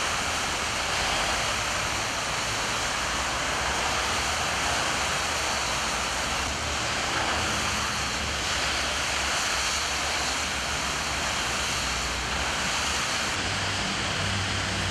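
Steady hiss of a heavy downpour mixed with car tyres swishing along a rain-soaked road. The sound changes slightly near the end.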